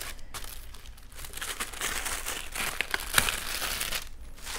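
Paper instruction booklets and their wrapping being opened and handled, rustling and crinkling, with one sharper crackle about three seconds in.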